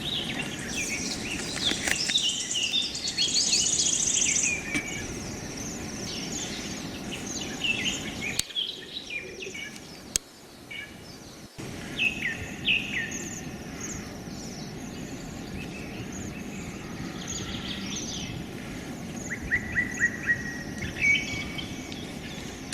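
Several songbirds chirping and singing, quick repeated notes and short trills, one overlapping another, over a steady low outdoor background hiss. The sound drops off briefly about halfway through, with a couple of sharp clicks, then the chirping resumes.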